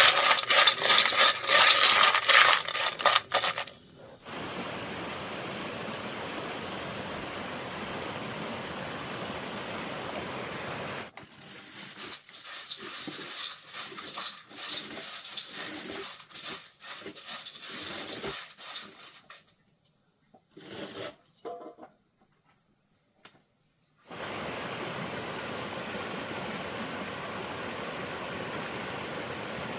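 Clattering and clinking for the first few seconds, then the steady rush of a flowing mountain stream. Midway the rush gives way to a run of irregular knocks and a quieter stretch, and about 24 seconds in the stream rush comes back.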